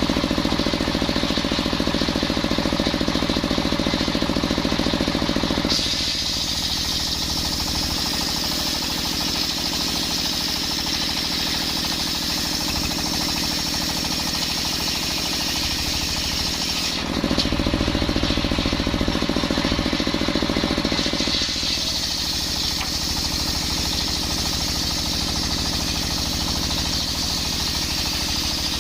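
A motor-driven circular saw running steadily while sawing coconut wood into beams. It gets louder and brighter twice, for the first six seconds or so and again for a few seconds past the middle, as the blade works through the log.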